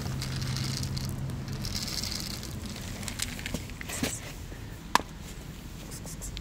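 Dry cat kibble shaken out of a plastic container onto concrete, rattling in two short runs over the first couple of seconds, followed by a few scattered clicks and knocks, the sharpest about five seconds in.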